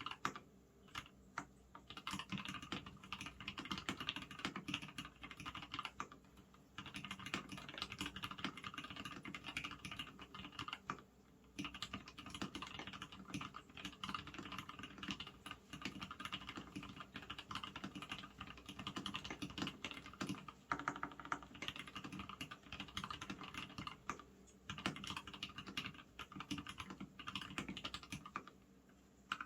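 Continuous fast typing on a custom 65% mechanical keyboard with Gateron red linear switches (62 g springs, 0.3 mm switch films) in a polycarbonate case with a stainless steel plate. The key clicks come in long runs broken by brief pauses.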